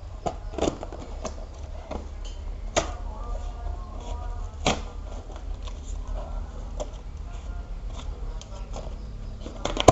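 A cardboard shipping box being cut open with a slim metal craft knife: scattered scrapes and clicks of the blade on the tape and cardboard, with a few sharper knocks against the box, over a steady low hum.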